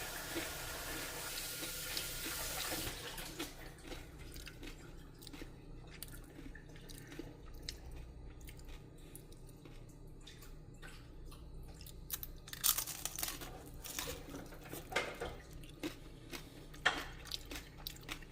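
A steady hiss for the first few seconds, then crisp crunches of a fried turon's caramelised sugar shell being bitten and chewed. The crunches come louder and sharper in the last several seconds.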